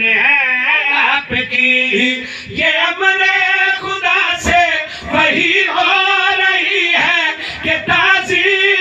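A man's voice chanting an Urdu qasida into a microphone, in long, wavering melodic phrases with short breaks between them.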